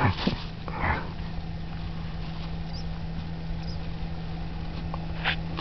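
Ground bait being mixed by hand: a few soft rustles and knocks near the start and once near the end, over a steady low hum.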